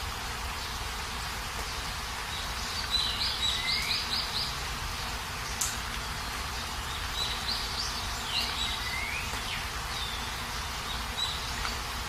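Steady hiss of rain, with a bird chirping in two runs of quick calls, one a few seconds in and another past the middle.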